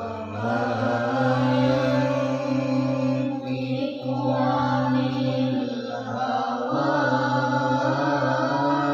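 Quran recitation by young reciters, chanted in the slow melodic style of tilawah with long held notes. The chant breaks off briefly twice, about three and a half seconds in and near seven seconds.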